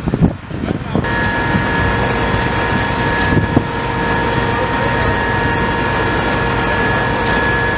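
Gusty wind rumble on the microphone for about a second, then a steady engine drone with a high, even whine sets in abruptly and runs on, over a loud rushing noise at a large barn fire.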